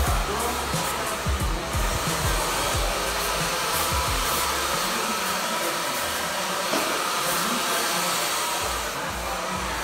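Handheld hair dryer blowing steadily, over background music.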